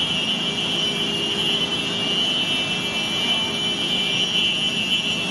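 Tsunami floodwater surging over a seawall and through harbour streets, a steady rushing noise, with a steady high-pitched tone running over it.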